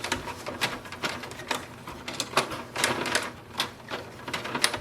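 Irregular plastic clicks, about four a second, as the partly removed paper roller of an HP DeskJet 4100-series printer is turned and handled for cleaning.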